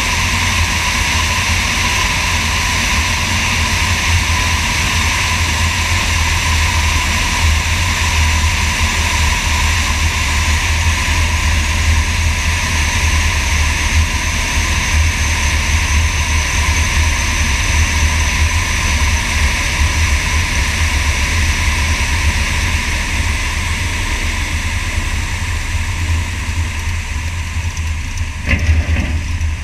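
Sonex light aircraft's engine and propeller droning steadily, heard from under the wing with wind rushing over the camera, on approach to land. Near the end the sound changes and a few sharp knocks come as the wheels touch down on the runway.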